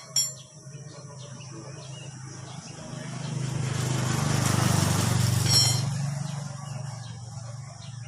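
A motor vehicle passes: its noise rises to a peak about five seconds in and then fades, over a steady low hum. Two sharp clicks come at the very start.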